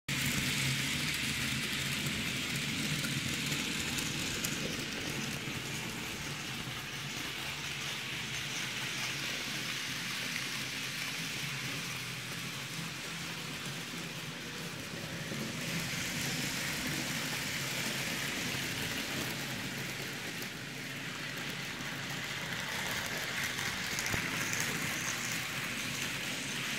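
Electric model trains running on a layout: a steady rattling hiss of small metal wheels on the rails over a low motor hum, swelling now and then as trains pass close.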